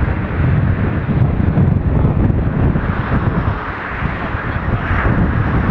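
Engine noise from an Airbus A340-600's four Rolls-Royce Trent 500 turbofans at takeoff power as the jet climbs away: a loud, deep rumble that wavers in loudness.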